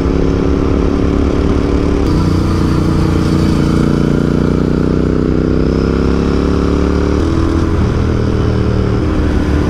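Motorcycle engine accelerating through the gears. There is a gear change about two seconds in, then the engine note climbs steadily for several seconds before another shift just past seven seconds, with wind and road noise underneath.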